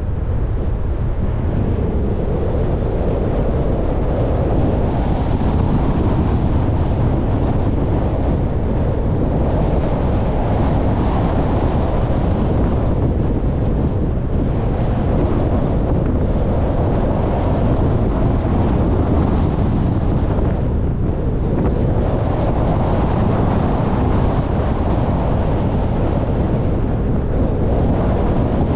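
Road and wind noise of a car driving: a dense, steady low rumble that swells and eases every few seconds.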